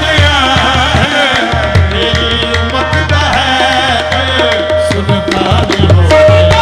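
Music led by tabla drums, with steady strokes under a melody line that wavers in pitch.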